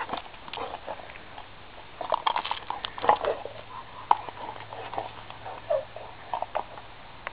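Redbone Coonhound's paws scuffing and clicking on asphalt as she plays with a rubber ball, with scattered light taps from the ball bouncing; irregular short clicks throughout.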